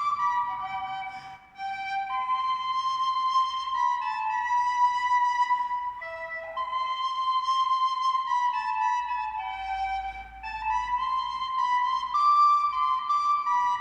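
Music: a slow melody of long held notes on a flute-like wind instrument, with a few short slides between notes.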